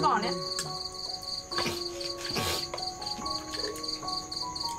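Crickets chirping in a steady high pulse, about five chirps a second, with a few light clicks of chopsticks and bowls.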